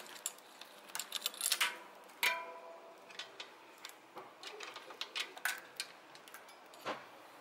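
Bicycle chain being fed around a cassette and through a rear derailleur: irregular metallic clicks and rattles of the links against the cogs and jockey wheels. The clicks are densest in the first half, with one louder tap that rings briefly a little over two seconds in.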